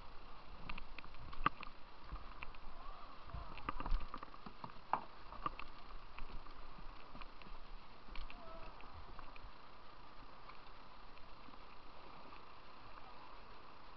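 Rushing whitewater of a shallow, rocky river rapid, heard from a kayak. Scattered sharp knocks and clatters, most of them in the first six seconds, from the paddle and the plastic hull striking rocks.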